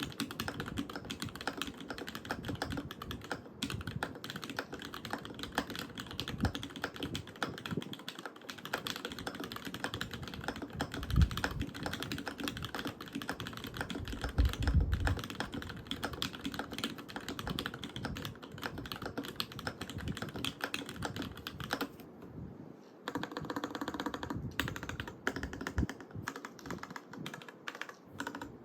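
Custom Alice-layout mechanical keyboard with lubed, filmed Cherry Vintage Black linear switches in a top-mounted copper plate and GMK keycaps, typed on steadily in fast clicking keystrokes. Two louder, deeper thumps come near the middle, and the typing stops briefly about three-quarters of the way through.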